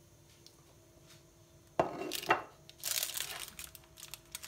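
Two sharp knocks about two seconds in, then a metal slotted turner cutting into and scraping under baked hachis parmentier on a parchment-lined baking tray, the paper crinkling, with small clicks.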